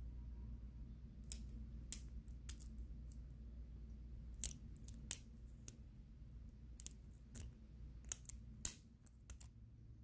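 Steel lock pick clicking against the pin tumblers inside a Blossom BC04 brass padlock held under heavy top-of-keyway tension: about a dozen faint, sharp clicks at irregular intervals.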